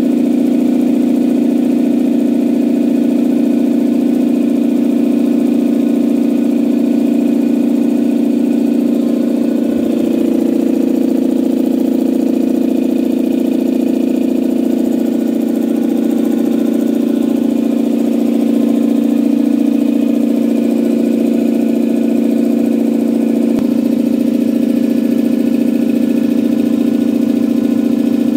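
Campbell Hausfeld two-cylinder air compressor running steadily on a test run, its pump building tank pressure with a new head gasket fitted. A loud, even mechanical hum, shifting slightly in tone about ten seconds in.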